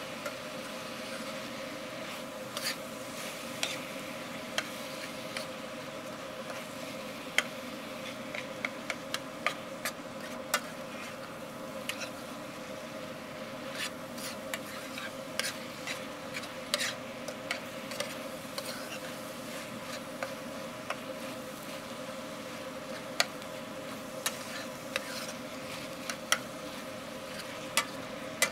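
A spatula scraping and tapping irregularly against a metal frying pan as ground meat and vegetables are stirred, over the faint sizzle of the meat frying. A steady low hum runs underneath.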